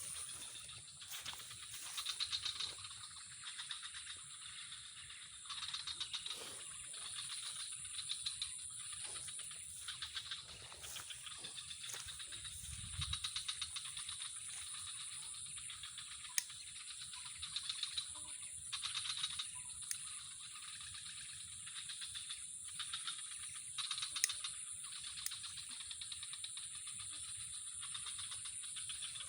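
Insects chirring: a steady high-pitched drone with rapid rattling trills that swell and fade every few seconds.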